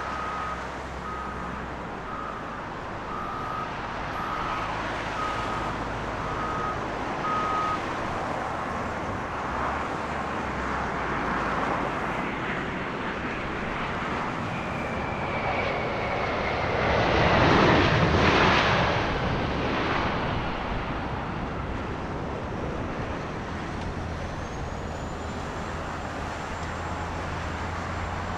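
A reversing alarm beeps about once a second for the first several seconds. Then a Boeing 777-200ER landing: jet noise from its Rolls-Royce Trent engines builds and is loudest a few seconds after touchdown, when airliners go into reverse thrust, then fades as the jet slows on the runway.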